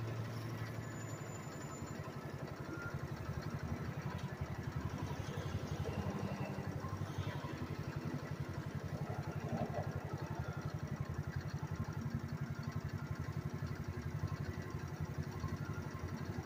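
Phatmoto motorized bike's small single-cylinder engine idling at a standstill with a fast, even putter.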